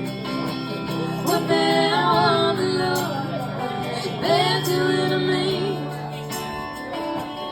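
A band playing an instrumental country-rock passage, with a lead melody line that bends and wavers over steady guitar-led accompaniment.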